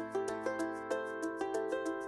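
Background music: a quick, even run of short notes, about five a second, over a held low note.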